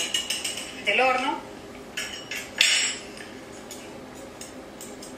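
A short vocal sound about a second in, then a couple of brief clinking clatters between two and three seconds in, over low steady room noise.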